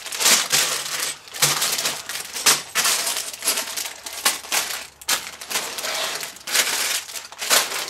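Sealed plastic bags of LEGO pieces being picked up, shuffled and set down on a table: the plastic crinkles and the loose bricks inside rattle and clink in a string of irregular bursts.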